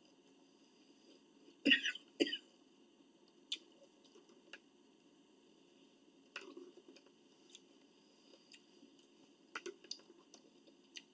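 A person clears their throat twice in quick succession about two seconds in, with scattered light clicks of forks on dishes during the meal.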